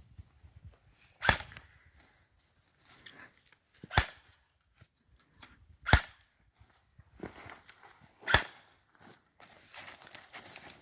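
Four single sharp shots from an airsoft gun, spaced about two seconds apart, with faint rustling in between.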